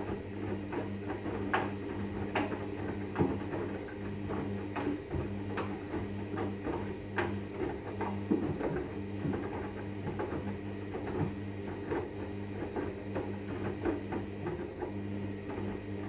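Hoover front-loading washing machine in the main wash of a 30 °C synthetics cycle: the drum motor hums steadily as it turns the drum, with irregular knocks and splashes from the wet laundry tumbling inside.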